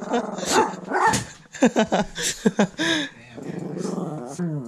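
Small black-and-tan dog growling and giving short yips and barks, then a long low growl from about the middle that ends in a falling whine.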